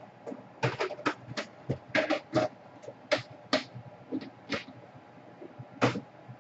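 Irregular clicks and taps of small hard objects being handled at a repair bench, about fifteen over six seconds, the loudest near the end.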